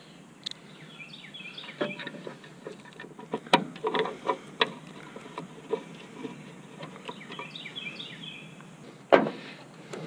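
Scattered clicks and taps as a taillight lens is set back in place on a 1988 Chevrolet Suburban and fastened with a T15 Torx screw, with one louder knock near the end. Birds chirp faintly in the background.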